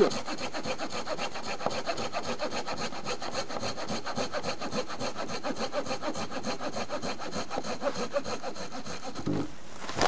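Fiskars hand saw cutting through a dry spruce trunk about 8–9 cm thick in quick, even back-and-forth strokes; the cut goes briskly. The sawing stops about nine seconds in as the trunk is cut through.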